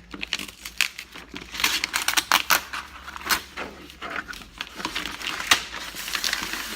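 Cardboard box and packaging being handled and opened: irregular crinkling, rustling and sharp clicks, with a louder snap a little past the middle.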